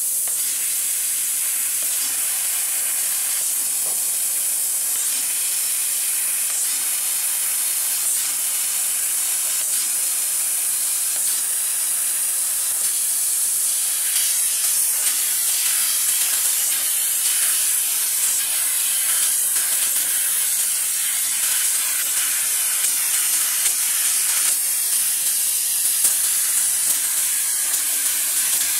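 CNC laser cutting machine cutting sheet metal: a steady high hiss of assist gas jetting from the cutting head. It gets a little louder, with small irregular spikes, from about halfway.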